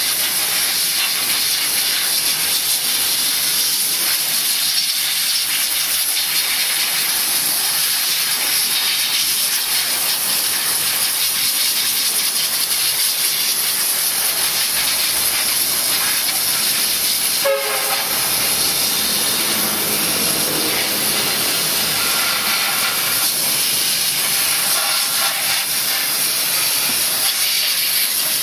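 Commercial steam cleaner's wand jetting steam over a car engine: a steady, unbroken hiss.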